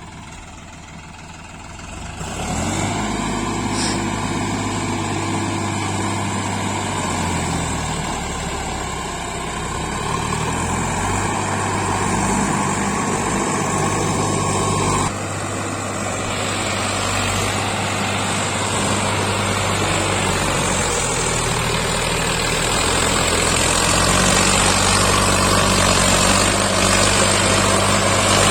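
Heavy machine's diesel engine running. About two seconds in it gets louder and rises in pitch, then goes up and down in speed under load. About halfway through the sound changes abruptly and runs on steadily.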